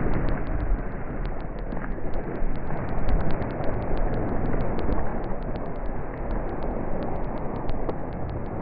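Wind buffeting the microphone, a loud steady rumble, with a fast string of faint high ticks, several a second, over it.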